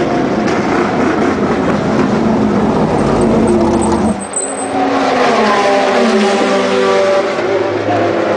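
Race car engines running: first a dense, noisy rush, then about four seconds in, clearer engine notes, some sliding down in pitch.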